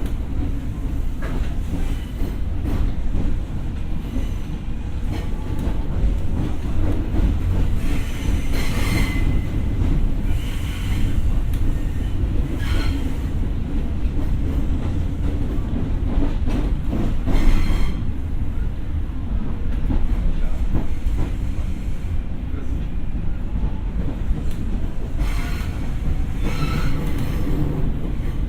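Former Tokyo Metro 6000 series electric train running along the line, heard aboard: a steady low rumble of wheels on rail, with several short bursts of hiss and wheel squeal.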